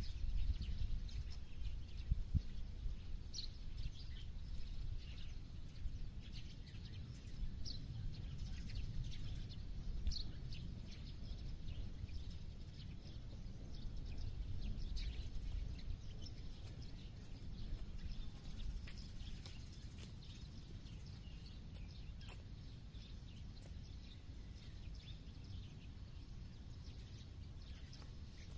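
Birds chirping, with short high calls scattered throughout, over a steady low rumble of outdoor background noise.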